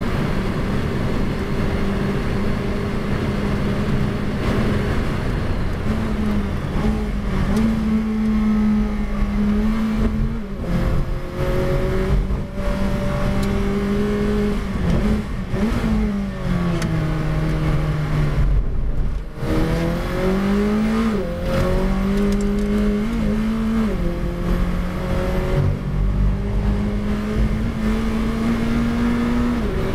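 McLaren 570S GT4's twin-turbo V8 heard from inside the cockpit at racing speed, running at high revs through the gears. Its pitch falls and climbs again several times as the car brakes and changes down for corners and then accelerates out, with the deepest dip about nineteen seconds in.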